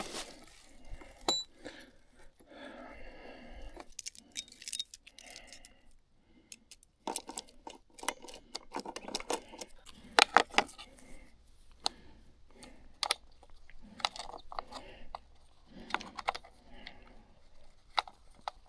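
Irregular light metallic clinks and rattles of a Stihl MS 251 chainsaw's chain and bar being handled by hand, with the engine off, as the thrown chain is put back on.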